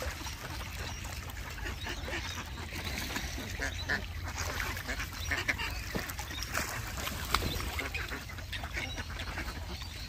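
Birds calling: many short calls overlapping from a mixed group of ducks and little corellas, over a steady low rumble.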